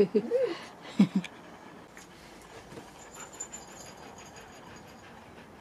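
Husky making short vocal sounds: a rising-and-falling call at the start and two brief low ones about a second in, then quiet.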